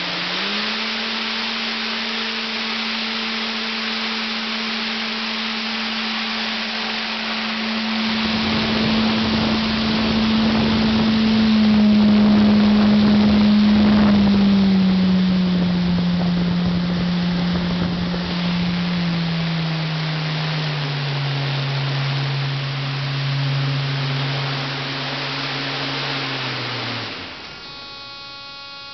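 Electric DC motor spinning a two-blade propeller fan under a PWM speed controller: a steady whirring hum with rushing air, which grows into loud wind buffeting on the microphone in the middle. The pitch steps down several times as the fan slows, then it winds down and stops near the end, leaving a thin electrical buzz.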